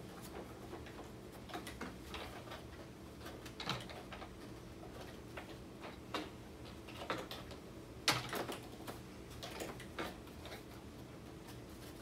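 Scattered light clicks and taps of plastic and foam parts being handled as the top wing of a foam RC biplane is lined up on its struts, with the sharpest knock about two-thirds of the way in.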